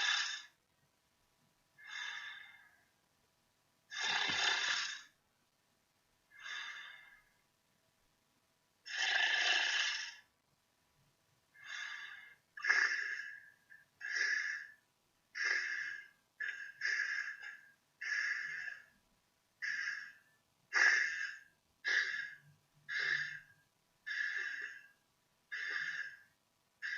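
Human snoring sounds: a series of breathy, hissy snores with silence between them. They come slowly at first, alternating longer and shorter ones, then quicken to about one a second from roughly halfway through.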